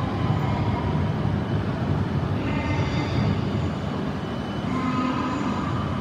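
E6 series Shinkansen (Komachi) electric train moving slowly along the station platform: a steady low rumble with faint high whining tones that come and go.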